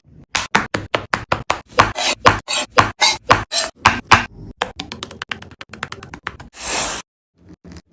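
A rapid series of sharp knocks, about four or five a second, as from a utensil striking a board or bowl in food preparation; lighter, quicker taps follow, then a short hiss near the end.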